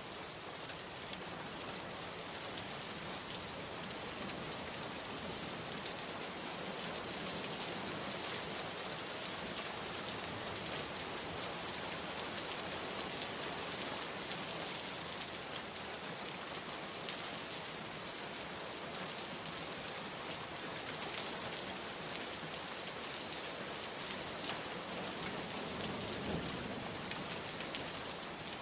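Steady rain falling on a surface, a dense even hiss with many small individual drop ticks.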